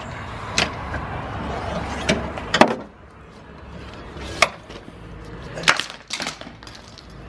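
A handful of sharp metallic clanks and clicks from parts being handled in an engine bay while AC lines are pulled out, the loudest about two and a half seconds in.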